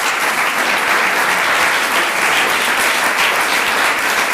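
Audience applauding steadily after a lecture's closing thanks, with dense, even clapping.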